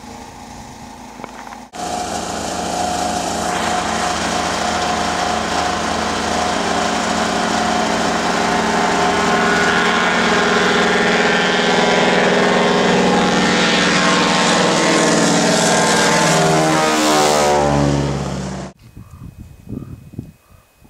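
Single-engine floatplane on its takeoff run across a lake at full power. The engine and propeller drone grows louder as it comes closer, and its pitch drops as it passes. The sound cuts off suddenly near the end.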